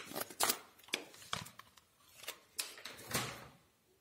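A stack of cardstock folders being lifted and slid aside inside a cardboard box: a run of paper rustles, light knocks and scrapes, stopping about three and a half seconds in.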